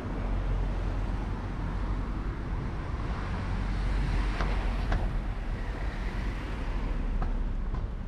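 Street ambience dominated by a steady low rumble of road traffic, with a few sharp clicks about four to five seconds in and another near the end.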